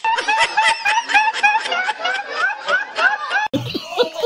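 A young man laughing in quick, repeated snickers. About three and a half seconds in, it cuts sharply to another man's laughter.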